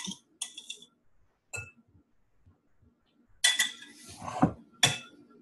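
Kitchen utensils and a mixing bowl clinking and clattering: a few separate clinks, then a busier run of clatter about three and a half seconds in.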